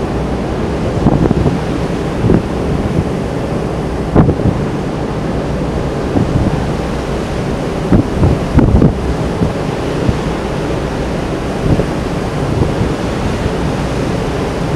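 Wind buffeting the microphone in irregular gusts, about every second or two, over a steady low rush of wind and sea at the ship's side.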